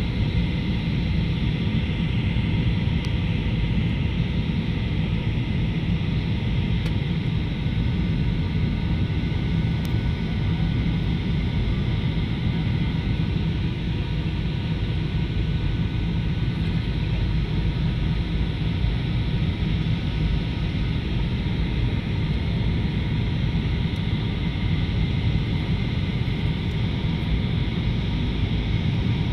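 Airliner cabin noise on the landing approach: a steady, unchanging rumble of the engines and rushing air, heard from inside the cabin, with a few faint steady tones above it.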